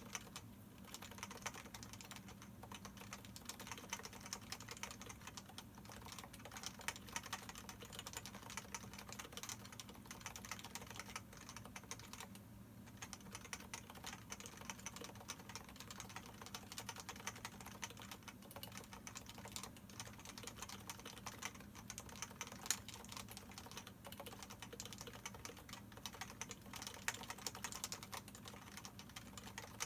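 Typing on a Leopold FC660C Topre electrostatic capacitive keyboard with 45 g domes and PBT dye-sublimated keycaps, a fast continuous run of soft keystroke clacks with a short pause about twelve seconds in. The stabilizers are lubed with Krytox 205 and the sliders are unlubed.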